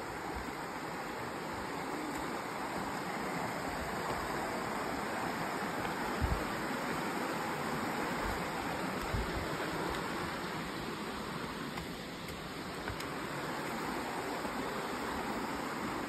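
Shallow rocky river rushing steadily over stones. A couple of brief low thumps come about six and nine seconds in.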